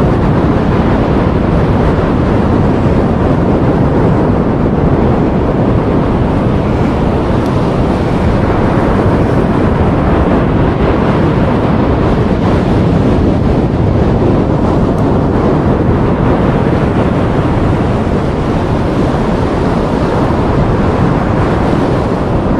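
Steady wind noise on the microphone over the wash of surf breaking on a sandy beach.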